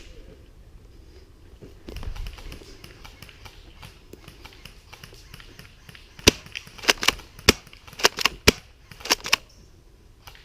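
Airsoft guns firing a string of single shots: about ten sharp cracks at uneven spacing over some three seconds, starting about six seconds in. Before them, only faint rustling and a low thud.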